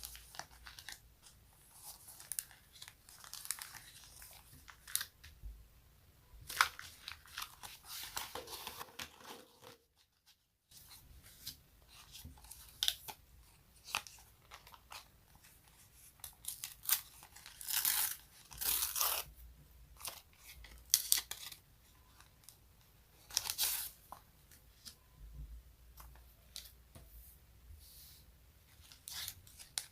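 Sticky adhesive surface being peeled apart close to the microphone: a string of irregular crackling peels, most short, a few lasting about a second, with a brief dead-silent break about ten seconds in.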